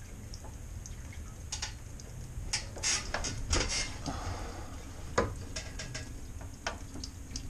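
Scattered clicks and knocks of handling as the white water supply hose is moved to clear a kink, over a faint trickle of the faucet running into a stainless steel sink.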